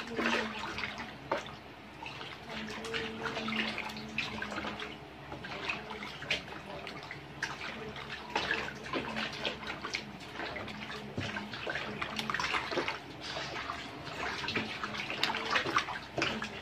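A hand swishing and sloshing sugared water in a large plastic basin beside a heap of flour, stirring it to dissolve the sugar for bread dough, with irregular splashy strokes.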